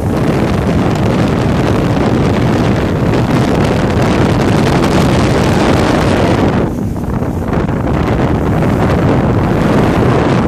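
Wind buffeting the microphone aboard a motorboat underway, with the rush of the boat's motor and water beneath it; the wind eases briefly about seven seconds in.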